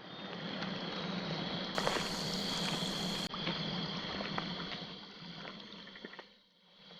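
Outdoor riverside ambience: running water under a steady high hum, with scattered light clicks, easing off near the end.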